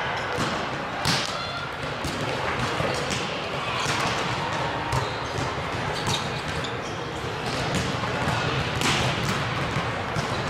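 Volleyballs smacking off hands and bouncing on the court floor in a large echoing hall, irregular sharp hits over a background of distant voices.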